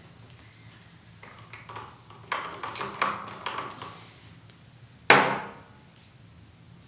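Plastic Play-Doh toy pieces being handled on a table: a run of small clicks and knocks, then one sharp, louder knock about five seconds in.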